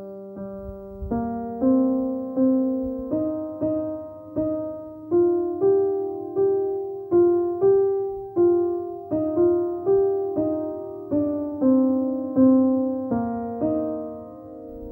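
Background music: a piano playing a slow, evenly paced line of notes and chords, about three notes every two seconds, with the last note dying away near the end.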